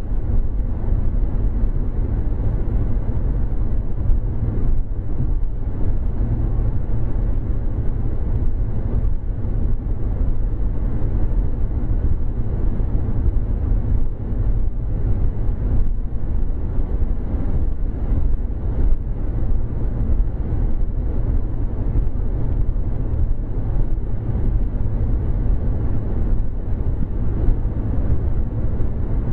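Steady road noise heard inside a car cruising at highway speed, about 65 mph: a low, even drone of tyres and engine with no change in pace.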